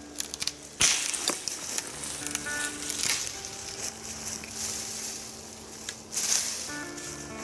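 A green sapling stem snapped by hand at a ring cut around it with a knife: a sharp crack about a second in, then cracking and tearing for a couple of seconds, and another burst of rustling noise about six seconds in. Background music with steady held tones plays underneath.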